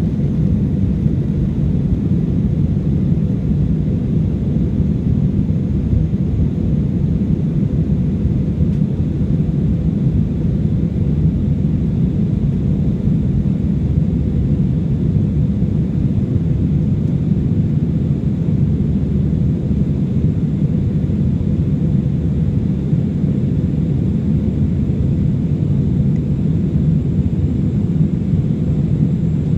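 AirAsia Airbus A320 jet airliner: a steady, unchanging rumble of engines and rushing air, with a faint steady hum on top, during the climb after takeoff.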